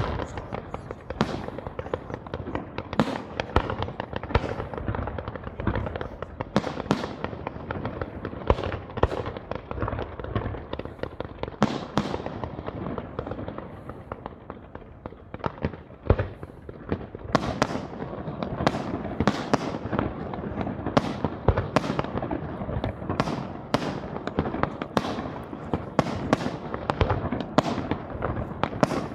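Aerial fireworks display: shells and comets firing and bursting in a fast, continuous string of bangs and crackles, thinning briefly about halfway through before picking up again.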